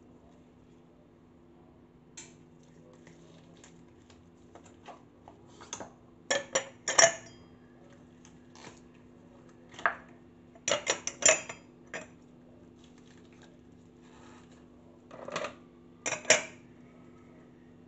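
Large square ice cubes pushed out of a silicone ice-cube tray and dropped into a tall drinking glass, clinking and knocking against the glass in several quick clusters.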